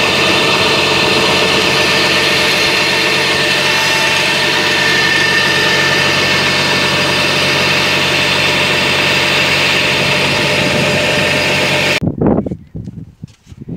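Tractor engine running steadily, driving a PTO water pump that is drawing water from a canal. About twelve seconds in, the sound cuts off abruptly, leaving a few soft knocks.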